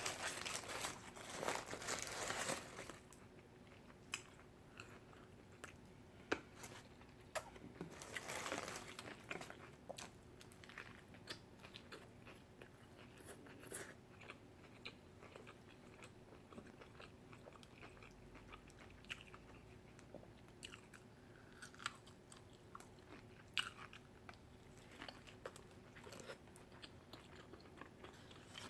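Close-miked eating: biting and chewing food, with scattered crunches and small mouth clicks. Paper or wrapper crinkling fills the first few seconds.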